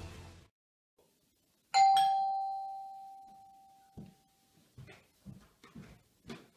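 A doorbell chime strikes a single ringing tone that dies away over about two seconds. A couple of seconds later footsteps start across the floor, about two a second.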